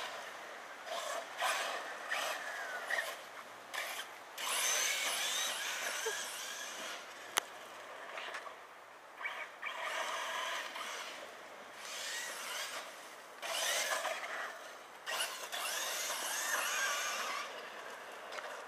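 Ansmann Racing Kryptonite brushless RC truggy running on a 3S LiPo: repeated bursts of high electric-motor whine, a few seconds each, rising and falling in pitch with the throttle. There is one sharp knock about halfway through.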